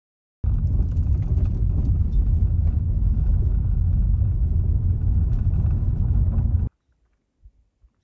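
A loud, steady low rumbling noise that starts suddenly about half a second in and cuts off abruptly near the end.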